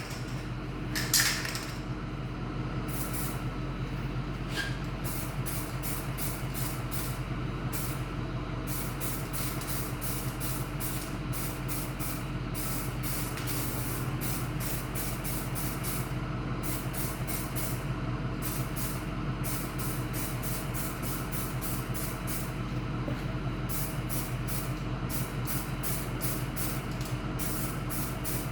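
Aerosol rattle can of filler primer spraying in many short bursts, over a steady low hum.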